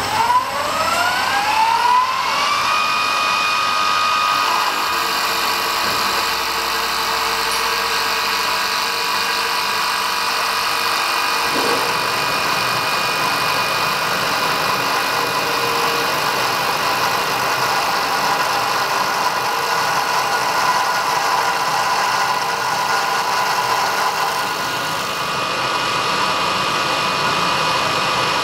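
CNC wood lathe spinning up, its motor whine rising and levelling off after about two seconds, then running steadily. Throughout, the cutter turns a square wooden block down to a round taper with a continuous hiss of wood being cut.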